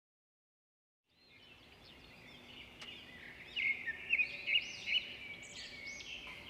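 Birdsong fades in after about a second of silence: many small birds chirping, with quick, repeated, arching notes that keep overlapping.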